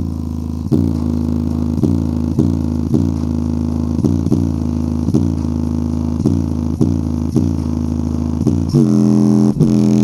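A JBL Flip 5's exposed oval woofer playing a heavy bass test track near full volume, deep bass notes pulsing about twice a second. Near the end the deepest bass drops away, leaving the higher bass notes.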